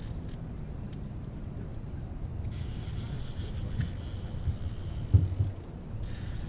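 Outboard motor of an aluminium fishing boat running steadily at low trolling speed, a low rumble, with a few thumps a little after five seconds in.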